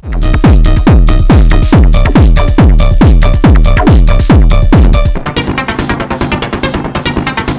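Techno pattern from an Elektron Digitone FM synthesizer: a kick drum with a falling pitch on every beat, about twice a second, under a busy high synth sequence. About five seconds in, the kick and bass drop out, leaving a quieter, faster ticking pattern.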